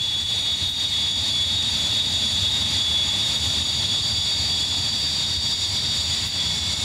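Hawker Hunter T-8's Rolls-Royce Avon turbojet running at taxi power: a steady, high jet whine over a low rumble.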